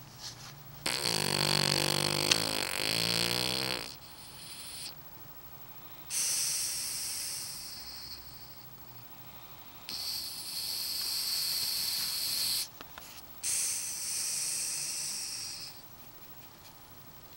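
French Bulldog snoring in its sleep: four long, wheezy breaths a few seconds apart. The first is the loudest, with a low buzzing rattle.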